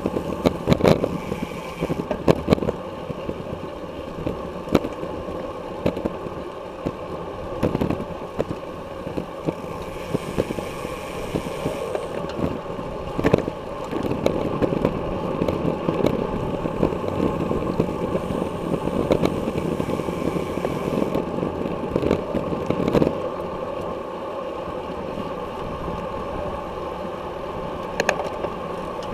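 Wind and road noise on a bicycle-mounted action camera riding at race speed in a pack of road bikes, with frequent sharp clicks and knocks as the bike and mount jolt over the pavement.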